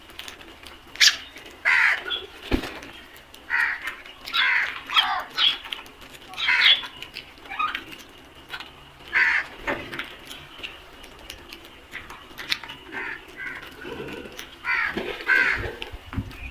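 A flock of crows cawing, many harsh calls overlapping and coming irregularly from several birds.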